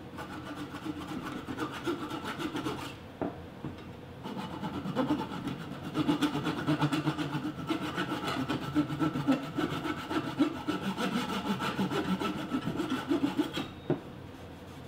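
Flush trim saw cutting glued-in cherry plugs flush with a stool leg, in quick back-and-forth strokes. There is a short pause about three seconds in, and the sawing stops just before the end.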